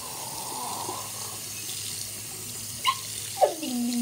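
Bathroom sink faucet running steadily, the water stream splashing over a rubber shark hand puppet held under it. Near the end two short sharp sounds, then a voice comes in.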